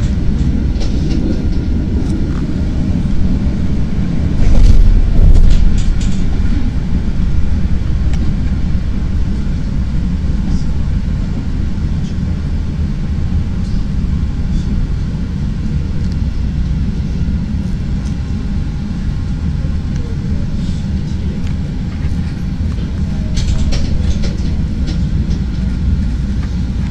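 Chicago 'L' rapid-transit train heard from inside the car: a steady low rumble of the train running on elevated track as it pulls into a station. There is a louder swell of rumble for about a second around five seconds in, and a few sharp clicks of the wheels over the rails.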